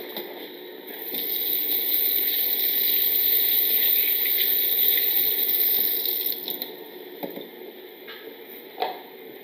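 Flour-dredged chicken breast frying in butter in a cast-iron skillet, sizzling loudly; the sizzle swells about a second in and dies back after about six seconds. Two light knocks near the end.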